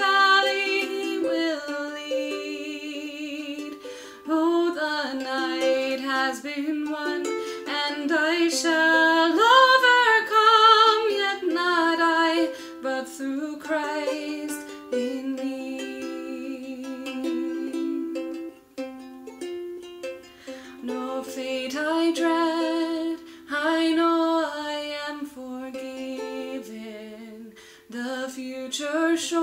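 Gentle music with a plucked-string accompaniment under a melody line, no words sung.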